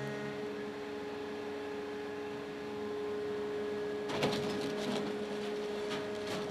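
Scrap-metal shear baler logger at work: a steady hydraulic pump whine, with a burst of clattering metal impacts about four seconds in and another short one near the end.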